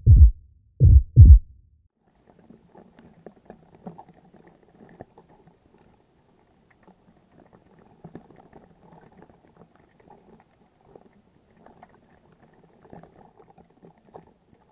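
Deep booming impact sound effect, a few heavy hits in the first second and a half. Then faint, scattered crackling and clicking.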